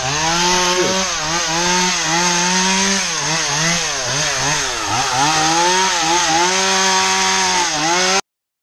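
Gas chainsaw running at high revs, its pitch dropping and recovering again and again as it is loaded in cuts through branches on a brush pile. It cuts off abruptly near the end.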